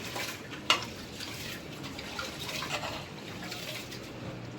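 A pot of cabbage and bacon cooking on the stove, sizzling and simmering with a steady hiss, with one sharp clink of a utensil on the pot less than a second in.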